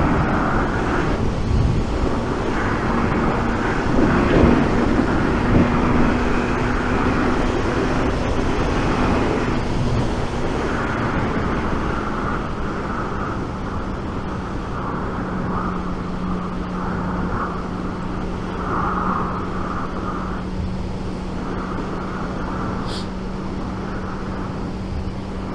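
Wind rushing loudly over a lavalier mic inside a motorcycle helmet at riding speed, with the steady hum of a Suzuki GSX 750's inline-four engine underneath. The hum drops slightly in pitch about halfway through.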